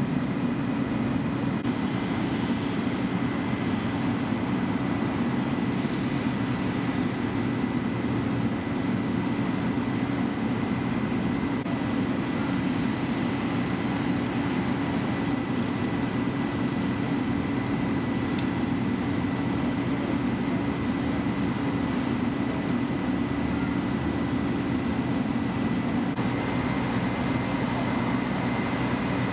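Fire trucks' diesel engines running steadily at a fireground, a constant droning hum with a thin steady high whine on top.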